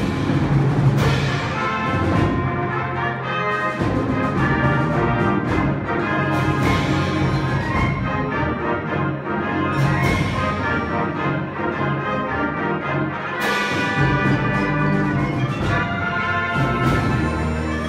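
Concert band playing a loud passage with the brass to the fore: full sustained chords broken by strong accented entries every few seconds.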